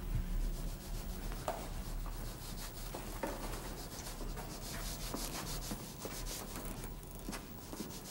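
Chalk and pencils scratching and rubbing on drawing paper in a run of many quick short strokes, over a low steady hum.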